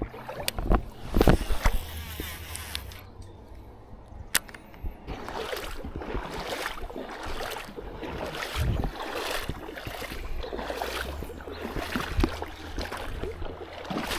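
Footsteps sloshing through shallow water at a steady walking pace, about two strides a second, after a few sharp knocks and splashes in the first two seconds.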